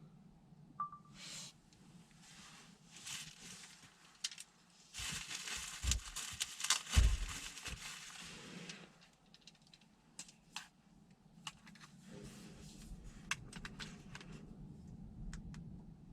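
Scattered small clicks and rustling over a low steady hum, with a louder stretch of rustling about five to nine seconds in and a dull thump near seven seconds.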